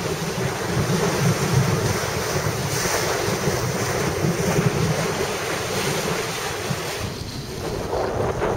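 Wind buffeting the microphone over a steady rush of water past the hull of a sailing yacht moving at about 9–10 knots.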